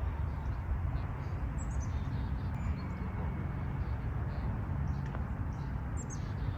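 Birds chirping faintly in short, scattered high calls over a steady low rumble.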